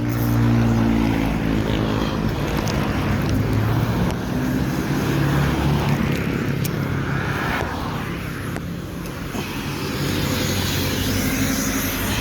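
A motor vehicle engine running, its low hum drifting up and down in pitch, with a steady rush of road or wind noise.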